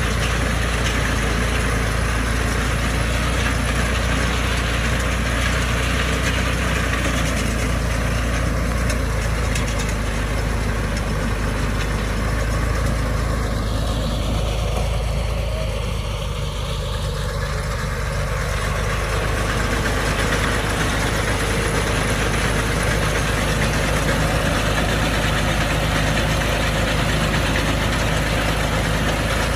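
Ford farm tractor's diesel engine running steadily under load while driving a small round baler that picks up straw. The level dips slightly about midway.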